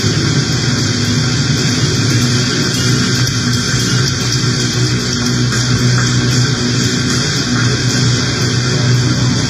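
Experimental noise music: a loud, steady wall of hissing noise over a low, unchanging hum, with no rhythm or breaks.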